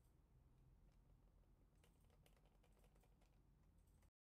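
Faint, muffled clicks of the Nubwo NM-96's silent-switch mouse buttons being pressed, a few scattered and then a quick run of clicks about two seconds in. The sound cuts off suddenly near the end.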